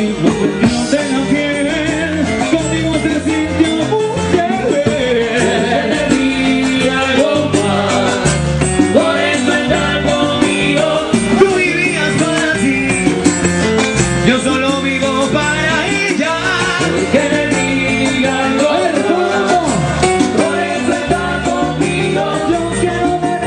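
Live Latin dance band playing, with trumpets and percussion keeping a steady beat.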